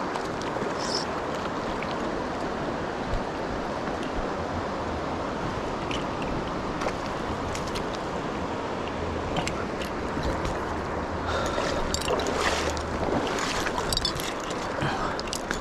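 Mountain stream water rushing steadily over rocks. A few light clicks and scrapes come in toward the end.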